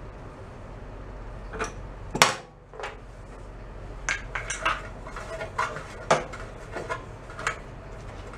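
Metal clicks and clinks from hands and tools working on an antique Briggs & Stratton small engine's carburetor. A single sharp knock comes about two seconds in, then a scatter of lighter clicks.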